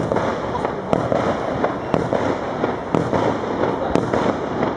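Fireworks going off in a dense, continuous crackle, with a sharp bang about once a second.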